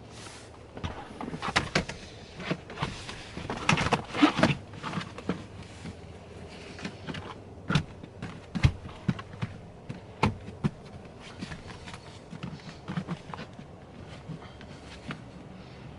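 Rubber all-weather floor mat being handled and fitted into a car footwell: scattered rustles, scrapes and knocks, busiest in the first few seconds, with a few sharp knocks around the middle.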